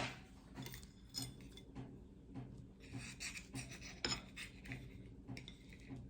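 Light rubbing and scraping with small clinks, as of glass or dishes being handled, with a sharp click at the start and another about four seconds in.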